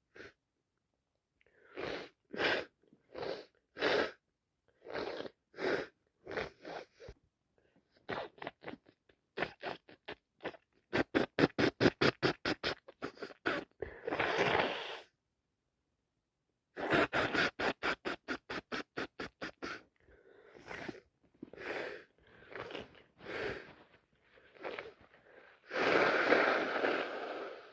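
A person with an itchy, runny nose from a cold or hay fever, sniffing and snuffling in many short bursts. Partway through come two fast runs of about six a second, and near the end a longer, louder burst.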